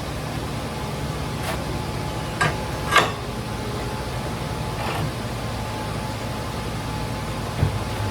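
Steady low machine hum with a few short knocks and clicks on metal, the loudest about three seconds in.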